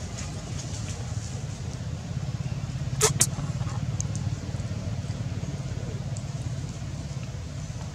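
A steady low rumble, with two sharp clicks a fraction of a second apart about three seconds in.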